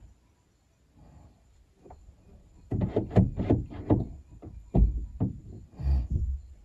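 A quick, irregular run of knocks and clunks that starts nearly three seconds in, with two heavier thumps near the end.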